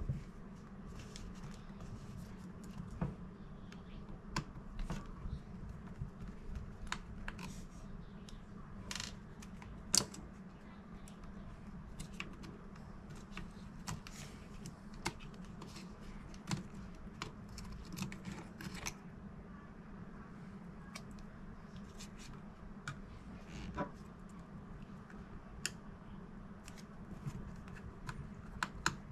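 Scattered small clicks and taps of tools and parts being handled while a 2015 MacBook Pro is taken apart, over a steady low hum. The clicks come thicker in the first two-thirds and thin out after that.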